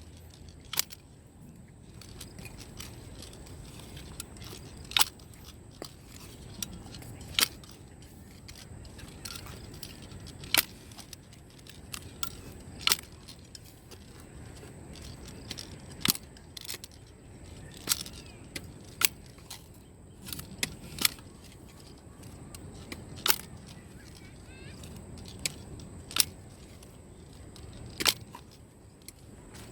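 Sharp, short clicks or light knocks, irregularly spaced about one every one to two and a half seconds, over a faint steady background.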